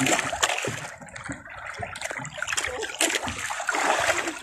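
Choppy waves splashing and slapping irregularly against the hull and outrigger of a small outrigger boat.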